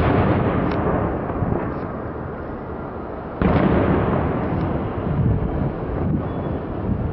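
Fireworks shells bursting: two loud booms, one at the start and one about three and a half seconds in, each followed by a long fading echo, with a few smaller pops between.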